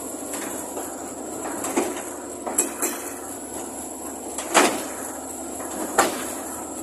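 A Hitachi excavator runs with a steady engine and hydraulic whine while its steel tracks clank a few times as it is loaded for transport. There are about five sharp metal clanks, the loudest a little past the middle.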